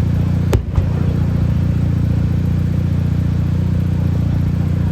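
Car engine running steadily with a deep, even rumble, close by. About half a second in there is a sharp pop, then a smaller one just after.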